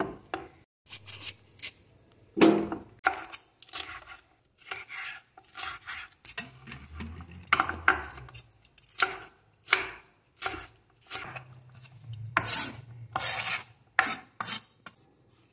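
Large kitchen knife chopping bell peppers on a wooden cutting board: a run of crisp, irregular cuts, about two or three a second, as the peppers are cut into strips and then diced.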